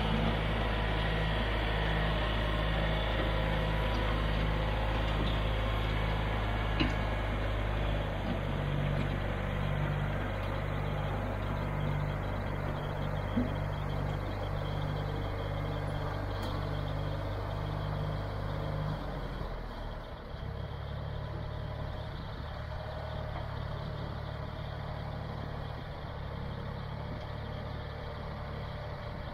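John Deere 1020 tractor's three-cylinder engine running steadily under load as it drags a box blade along a gravel driveway. Its low tone changes about eight seconds in and again around twenty seconds in.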